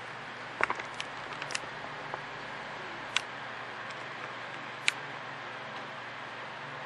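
A sheet of paper handled in the hands, giving a few sharp clicks and ticks over a steady room hiss.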